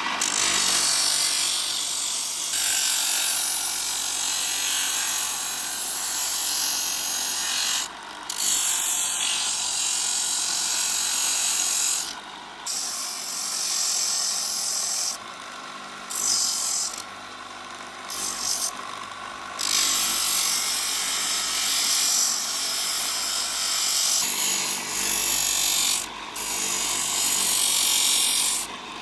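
An abrasive power tool working material in long passes, its high hissing noise broken by several short pauses through the middle and once near the end.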